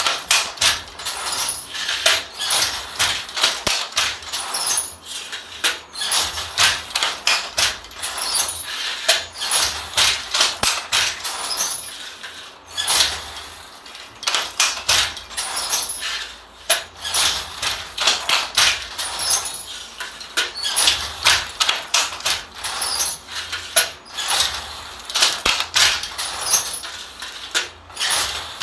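Wooden handloom being worked. Rapid clacks and knocks of the shuttles and the beater (sley) come in bursts of several strokes with short pauses between them.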